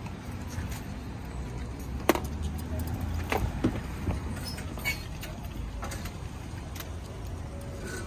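Scattered knocks and bumps of someone climbing into the back of a parked minivan, over a steady low rumble. The sharpest knocks come about two seconds in and again around three and a half seconds.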